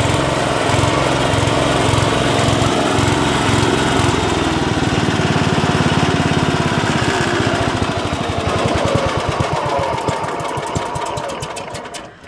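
Allis-Chalmers B-1 garden tractor's engine running, then slowing over the second half and dying out just before the end: the engine being shut down.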